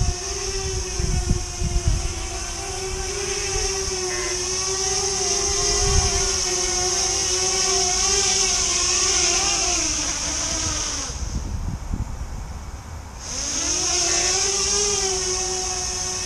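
Fimi Manta tiltrotor drone's two electric motors and propellers hovering with a steady buzzing hum whose pitch wavers as the throttle corrects. About 11 seconds in the motors stop, and about two seconds later they spin up again with a rising pitch.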